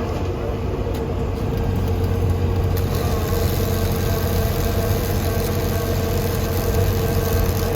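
A large engine running steadily at idle, with a constant low hum and a steady mid-pitched tone, getting slightly louder about three seconds in.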